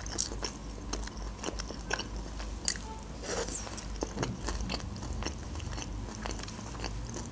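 Close-miked chewing of a mouthful of Caesar salad: irregular crisp crunches and mouth sounds, with one sharper crunch about two and a half seconds in.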